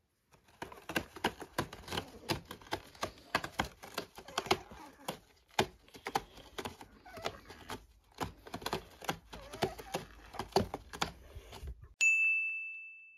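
Irregular crackling and crunching clicks for about eleven seconds, then a single bright ding near the end that rings and fades.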